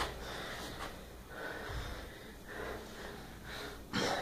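Breathing and sharp nasal exhales of two people grappling, with a short, louder burst of noise near the end.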